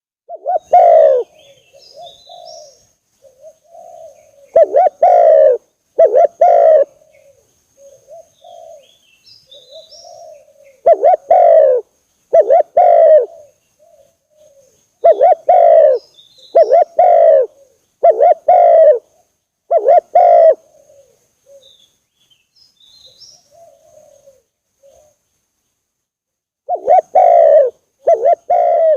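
Spotted dove cooing: loud, low coos, singly or in quick pairs, repeated every second or two with a few longer pauses, with softer coos between them. Faint high chirps of small birds sound in the background.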